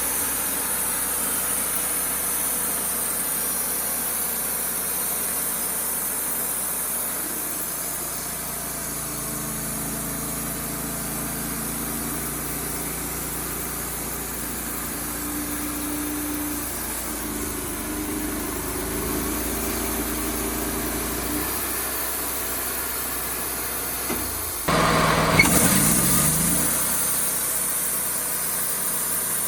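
Wood-Mizer LT35HD portable sawmill's engine running steadily, its note shifting in the middle of the stretch as the load changes. About 25 seconds in, it jumps louder with a pitch that falls away over a second or two.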